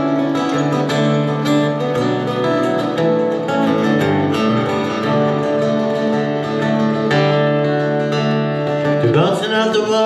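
Acoustic guitar playing a song's intro, picked and strummed chords ringing over steady bass notes. A man's singing voice comes in near the end.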